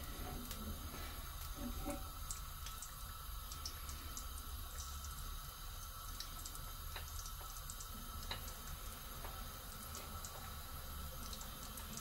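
Breadcrumb-coated chicken drumsticks frying in hot oil: a quiet, steady sizzle with scattered small crackles.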